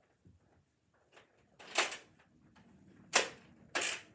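Nerf blaster being handled: three short clacks, the last two about two-thirds of a second apart.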